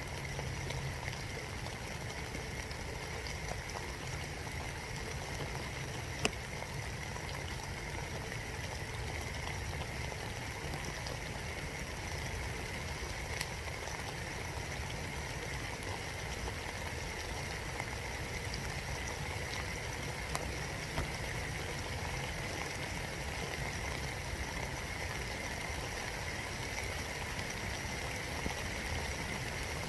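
Steady spring rain falling in woodland, heard from inside a birdhouse, with a few isolated sharp ticks of drops striking close by.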